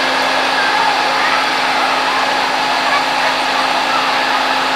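Steady machine drone, like a motor-driven blower running, with a constant low hum and no change in pitch; faint voices far off.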